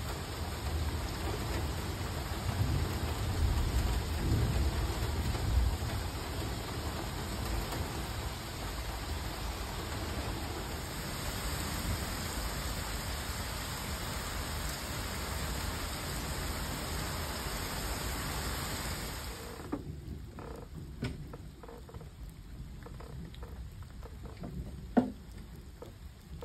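Heavy thunderstorm rain pouring down steadily, with a low rumble of thunder a few seconds in. About twenty seconds in the rain sound cuts off suddenly, leaving scattered light knocks and clicks with one sharp click near the end.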